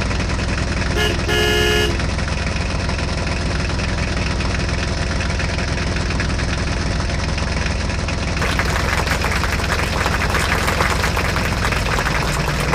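A heavy vehicle's engine idling steadily, with two horn toots about a second in, a short one then a longer one. From about two-thirds of the way in a harsher rattling noise joins the engine hum.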